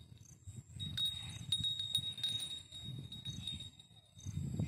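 Irregular low rumble like wind buffeting the microphone, under a faint steady high-pitched tone, with a light metallic tinkling from about one to two and a half seconds in.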